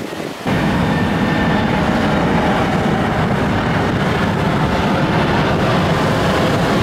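Boeing 737-800 airliner on approach to land, its jet engines making a loud, steady rumble that begins suddenly about half a second in.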